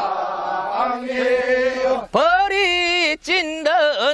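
Men singing a traditional Korean rice-paddy work song, unaccompanied. A long note is held for the first two seconds, then after a short break a voice carries on the line with a strongly wavering, ornamented pitch.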